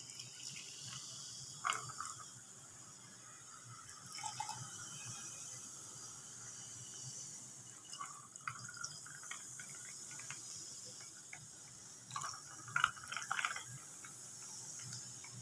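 Faint pouring of white carbonated soft drink into glasses over ice, the drink fizzing, with a few short knocks, a cluster of them near the end.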